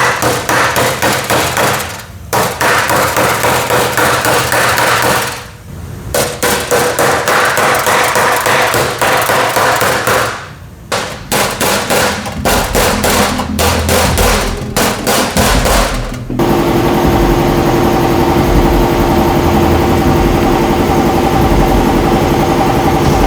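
Rapid hammer blows on sheet steel, a hammer against a dolly closing up a wire-edge hem, in long runs of strikes broken by short pauses. About sixteen seconds in the hammering stops and a steady drone with a held pitch takes over.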